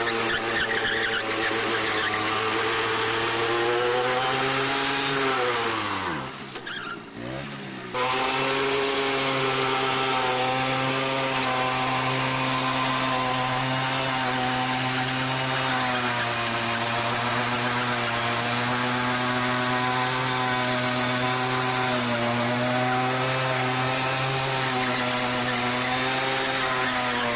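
Simson Star moped's 50 cc two-stroke single-cylinder engine held at high, steady revs while the rear tyre spins in a burnout. About six seconds in the revs fall away sharply and the sound drops. About two seconds later it comes back suddenly at high revs and holds steady.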